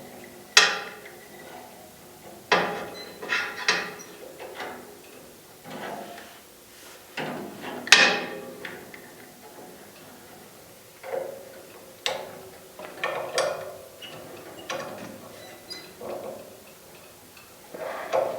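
Locking pliers and small pieces of metal clicking and clanking against a bandsaw blade as its bent carbide teeth are being straightened by hand. Irregular sharp metallic knocks, about a dozen, some with a short ring, the loudest about eight seconds in.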